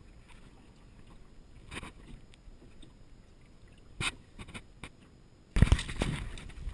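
Knocks and thumps on the floor of a jon boat as a freshly caught Spanish mackerel is handled: a few scattered sharp knocks, then a louder cluster of thumps near the end.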